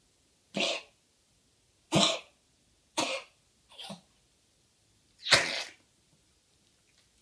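West Highland white terrier coughing: five harsh, gruff coughs about a second apart, the fourth weaker and the last the loudest. It is a chronic cough that the owner is treating with a bronchodilator and atropine, and which she feels has got worse.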